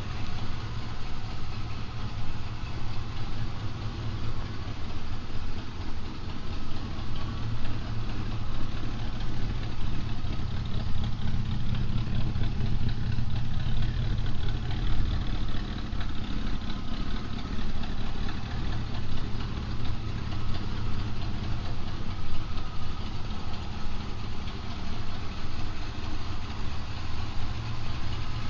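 1984 Hurst/Olds Cutlass's 307 cubic-inch V8 idling steadily with a low, even rumble.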